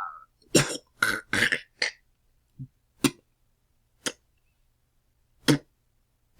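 A person retching: a long heave trails off just at the start. Then come short gagging heaves, four in quick succession in the first two seconds, then single ones spaced a second or more apart.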